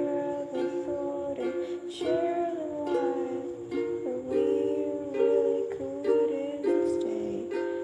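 Music: chords strummed in a steady rhythm on a small acoustic string instrument, with a few gliding melody notes over them.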